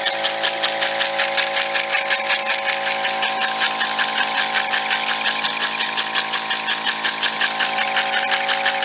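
Small homemade reciprocating steam engine running fast on compressed air, its exhaust chuffing in a quick, even rhythm over a steady whine, while it drives a small generator under the load of a light.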